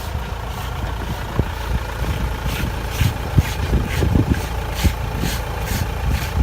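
Car engine idling with a steady low rumble and a thin steady whine, joined from about halfway by short irregular clicks and crunches.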